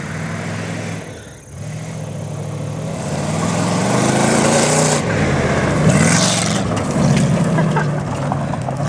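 Oldsmobile Cutlass Supreme's 307 V8 revving hard under load off-road, its pitch rising and falling, while the tyres spin, with surges of rushing noise about halfway through and again a second later. The engine is running on a clogged fuel filter.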